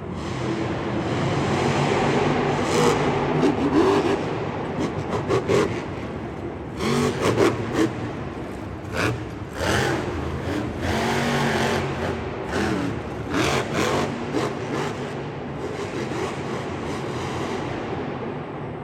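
Engine revving, its pitch rising and falling repeatedly, with many short knocks and clatters over it.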